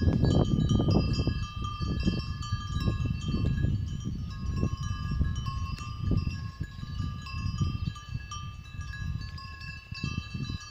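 Bells on grazing cows clanking and ringing, several bells at different pitches sounding over one another. Underneath is a louder, uneven low rumble on the microphone.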